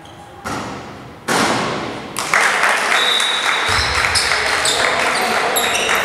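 Crowd in a school gymnasium cheering and shouting after a free throw. The noise rises suddenly about a second in and stays loud.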